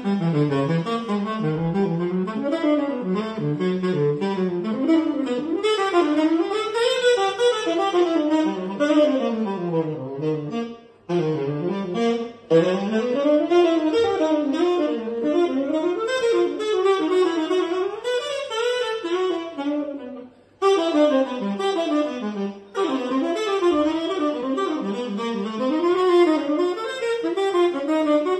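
Unaccompanied tenor saxophone playing fast jazz lines, quick runs of notes winding up and down, broken by a few brief pauses.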